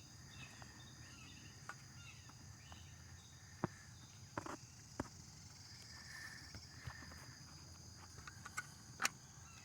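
Faint, steady chirring of crickets or other insects, with a few soft clicks and knocks of handling scattered through it.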